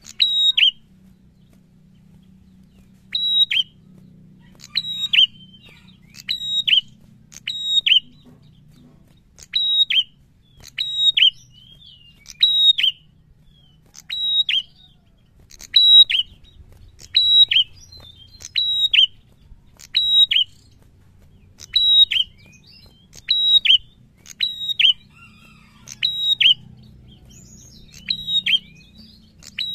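A caged tailorbird sings loud, sharp, high notes that drop in pitch, in short phrases repeated about every second or two. There is a brief pause between the first phrase and the next.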